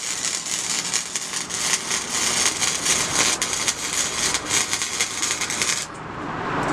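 Electric arc welder welding a section of exhaust pipe: a steady crackling sizzle full of rapid pops, which cuts off suddenly about six seconds in when the arc is broken.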